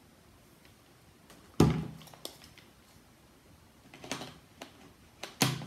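Clicks and knocks of a Canon EF 24-70mm f/2.8L lens being handled and mounted on a Canon 5D Mark IV camera body. A loud knock comes about a second and a half in, then a few smaller clicks around four seconds, and another sharp knock near the end.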